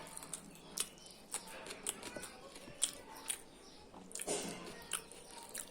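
Eating sounds: chewing and mouth noises over a meal of pulao and chicken, with frequent short sharp clicks.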